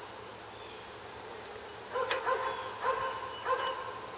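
A dog barking: a quick run of short, high barks starting about two seconds in.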